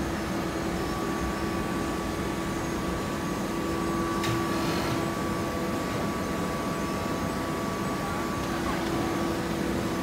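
Fully automatic horizontal hydraulic baler and surrounding factory machinery running with a steady hum and a thin, steady whine. A single short knock comes about four seconds in.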